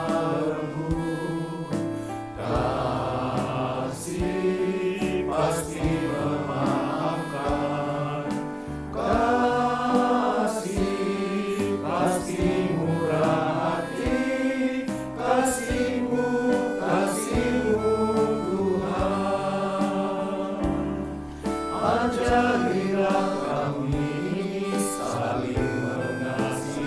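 Men's choir singing a slow hymn in several-part harmony, with sustained accompanying tones underneath.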